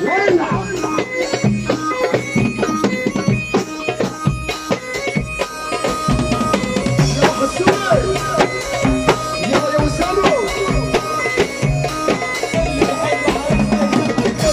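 Egyptian sha'bi band playing an instrumental passage: a sustained, bending lead melody over a busy, steady drum beat.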